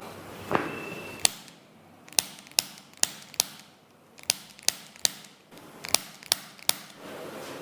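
Sharp joint cracks from chiropractic adjustments: about a dozen quick pops, coming in quick groups of two or three.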